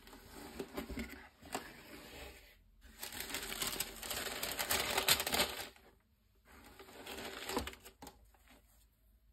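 Cardboard shoebox lid opened and white tissue paper rustling and crinkling as gloved hands fold it back. The rustling is loudest from about three to six seconds in, with a couple of sharp knocks.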